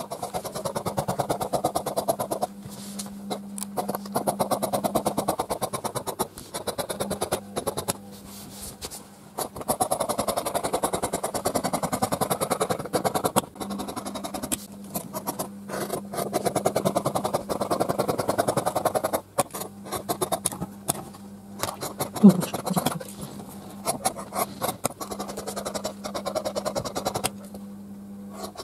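Large dressmaker's shears cutting black biflex stretch fabric: runs of quick snipping strokes, broken by short pauses as the cut is repositioned.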